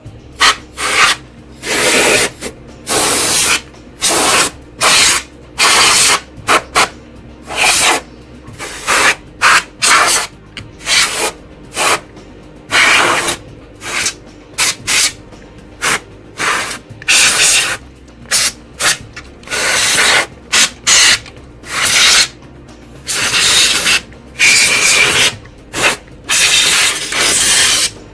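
Dozens of short, irregular bursts of hissing and rubbing noise, some brief and some held for a second or more, as computer parts are cleaned.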